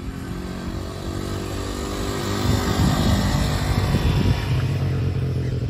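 A vehicle engine running steadily and growing louder over the first couple of seconds, then holding.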